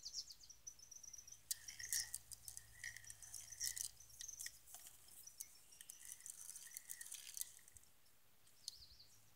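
Faint, irregular high-pitched chirps, trills and ticks from evening birds and insects, dying away over the last couple of seconds.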